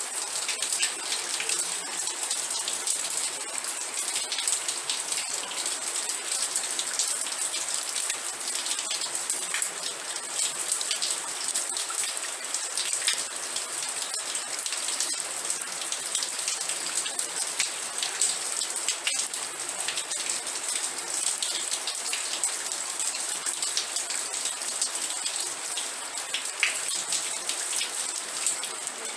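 Steady rain with dense, pattering drops hitting a surface.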